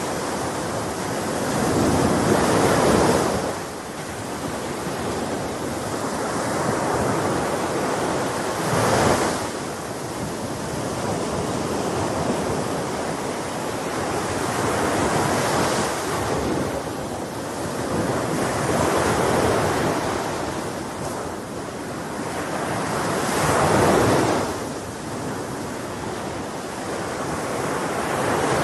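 Sea waves surging in and washing back, rising and falling every several seconds, with wind blowing over the water.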